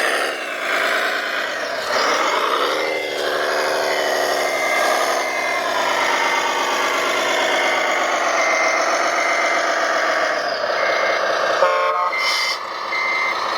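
A truck's reversing beeper sounding over and over, with engine noise rising and falling beneath it, from radio-controlled construction vehicles. A brief rattle sounds near the end.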